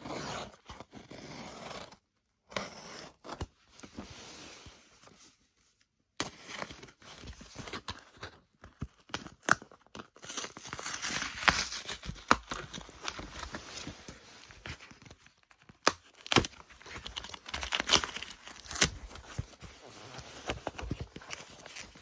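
A utility knife blade slitting packing tape on a cardboard box in a few long strokes, then tape tearing and cardboard flaps crackling and rustling as the box is pulled open and the card inside is handled.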